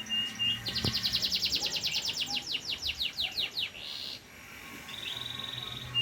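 Pied ('panda') domestic canary singing: a fast trill of repeated falling sweeps, about ten a second, then a brief buzzy note and a steady rattling trill near the end.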